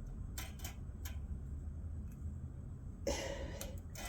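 Faint small clicks and taps of fingers working a little spring into a hole in the carburetor linkage, over a low steady hum, with a short rustle about three seconds in.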